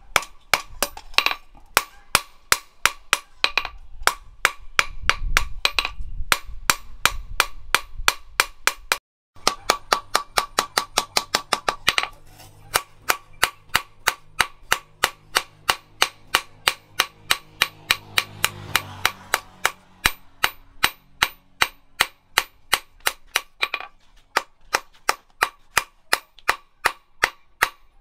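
Hand hammer striking a hot steel knife blade on a small round post anvil, in steady blows about three a second, each with a short metallic ring. The hammering breaks off for a moment about nine seconds in, then carries on.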